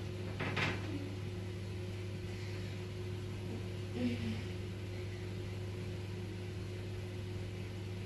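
Steady low mechanical hum, with faint soft rubbing as a wooden rolling pin rolls bread dough flat on a silicone mat, and a brief short sound about four seconds in.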